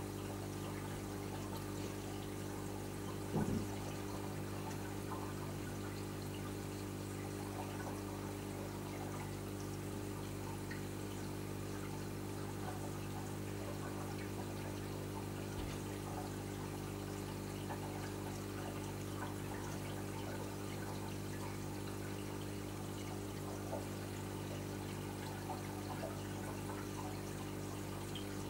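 Reef aquarium's running water trickling and splashing steadily over the even hum of its pumps, with one brief low knock about three and a half seconds in.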